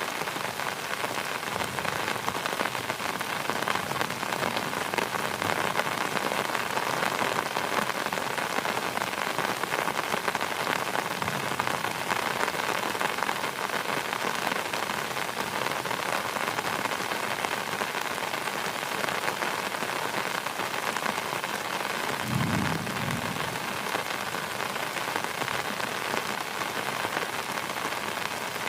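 Heavy rain falling steadily on surfaces, a dense, even patter. A brief low rumble rises under it about three-quarters of the way through.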